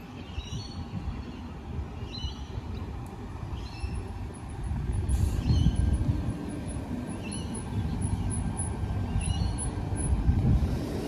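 Low, uneven rumble of a passing vehicle at a railway station, swelling about halfway through and again near the end, with short high chirps every second or two.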